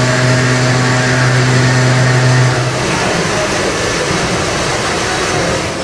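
Loud, steady machinery noise in a Liberty ship's steam engine room, with the boilers firing. A steady low hum under the noise stops about three seconds in.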